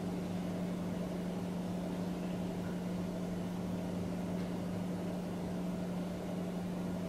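A steady low machine hum with one constant tone, unchanging throughout.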